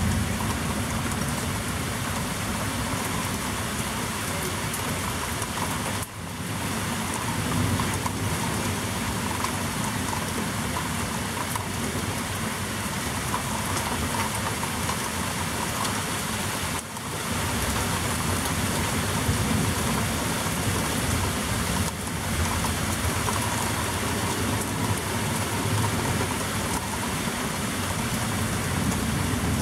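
Heavy rain falling steadily in a thunderstorm, a dense hiss with a low rumble underneath. The sound briefly drops out twice.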